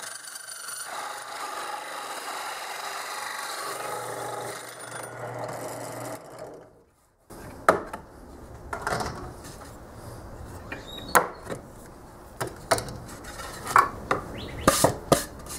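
Drill press running with a hole saw cutting into plywood: a steady motor whine with a rasping cut for about six seconds, then it dies away. After a brief silence come scattered knocks and clatter as the board is handled on the drill press table.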